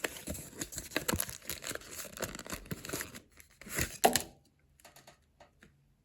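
Foil Pokémon card booster pack wrapper being torn open and crinkled: a dense crackle for about three seconds, then two sharper rustles about four seconds in.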